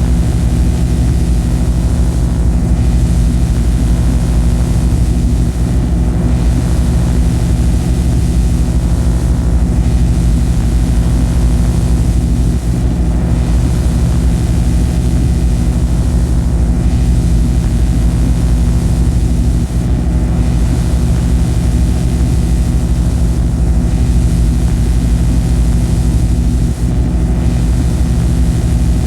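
Experimental noise music: a loud, steady drone of low humming tones under a wash of hiss, the hiss dipping briefly about every three and a half seconds.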